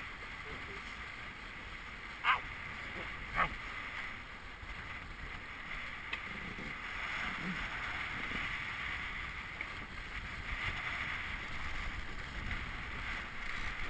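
Water rushing and spraying along the hull of a Melges 17 sailing dinghy moving fast through chop, mixed with wind noise on the microphone, a little stronger from about halfway through. Two sharp knocks about two and three seconds in.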